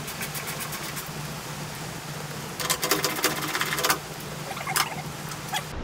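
A tool working the windshield's window stops off the car body: rapid mechanical clicking in short bursts, the longest and loudest lasting just over a second in the middle, with a brief burst near the end.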